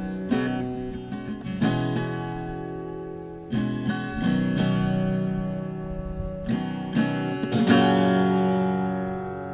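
Acoustic guitar strumming chords, each chord struck and left to ring for a second or two; the strongest, near the end, rings out longest.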